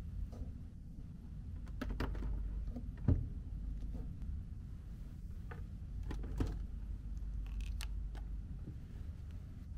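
Glass-door Wellway minibar fridge being handled and opened: a few soft clicks and knocks, with one louder low thump about three seconds in, over a steady low hum.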